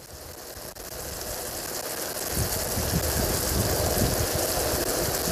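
Mushrooms sizzling in a pan on a camping stove: a steady hiss that fades in over the first couple of seconds.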